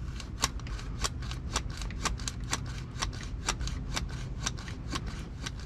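Sharp pops and clicks, about three a second at uneven spacing: audio pops from a faulty GoPro microphone.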